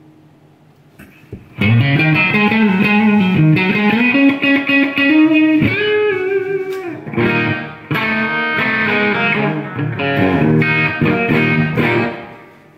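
Electric guitar played through a Way Huge Green Rhino MkII overdrive pedal, with the drive set low, into a Mesa Boogie Formula preamp, 50/50 power amp and Engl 4x12 cab, giving a gritty, lightly overdriven tone. After about a second and a half of amp hum, it plays a phrase of held notes with a bend, then short choppy chords, and stops just before the end.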